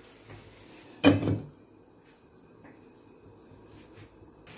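A stainless-steel lid set down on an appam pan: one short metal clank about a second in, then only faint room tone.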